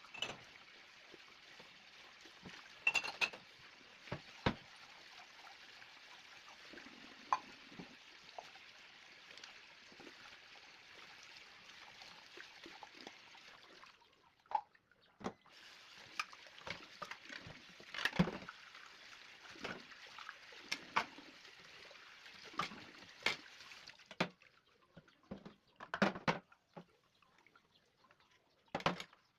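A tap running into a sink while dishes are washed, with dishes and utensils clinking and knocking against each other. The water is shut off about halfway through, turned back on a second or so later, and shut off again near the end, leaving only the clinks.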